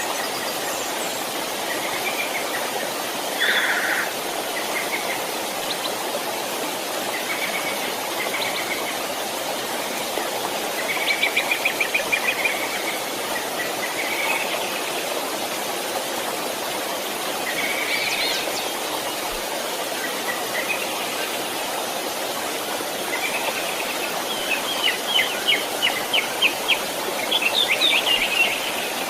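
A small stream running with a steady rush, birds calling and singing over it. Quick trilling bursts of song come about eleven seconds in and again near the end.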